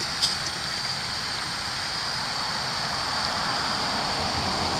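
Steady outdoor night background noise: an even hiss with a steady high-pitched drone over it, and one brief click about a quarter second in.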